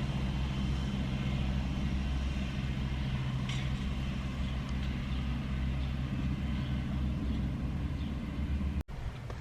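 Car running on the road, a steady low drone of engine and road noise that breaks off suddenly near the end.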